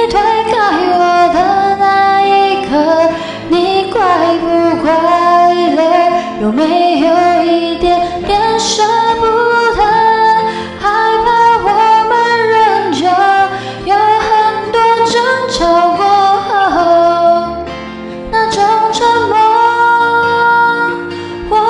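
A song with a woman singing a melody.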